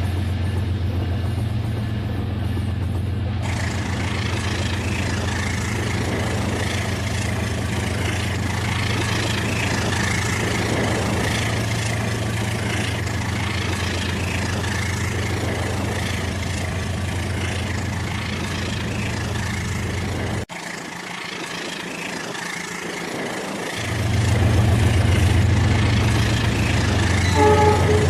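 Rail King toy train running, giving a steady low mechanical hum with a whirring haze above it. The low hum drops out for about three seconds past the middle and then comes back, and a short tone sounds near the end.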